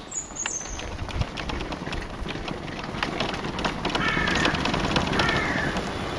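Motorbike riding down a cobbled street, a steady low rumble with scattered clicks. A bird calls twice over it, about four and five seconds in.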